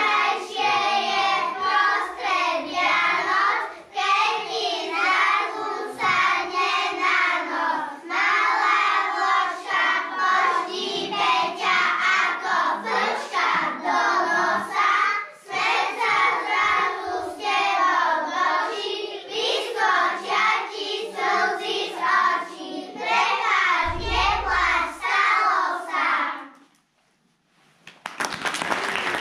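A group of young children singing a song together. The song ends about 26 seconds in, and after a short pause applause starts near the end.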